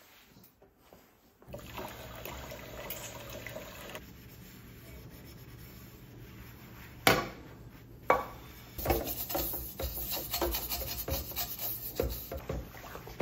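Dishes being washed by hand in a steel sink: rubbing with a sponge, a sharp knock of a pot about seven seconds in, then a dish brush scrubbing the inside of a pot with quick rasping strokes.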